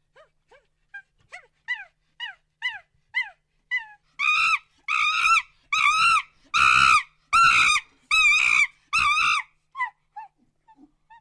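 A monkey calling in a rising-and-falling sequence. Short calls that drop in pitch, about two a second, build about four seconds in into a run of much louder, longer, harsh calls, then fall back to a few short calls near the end.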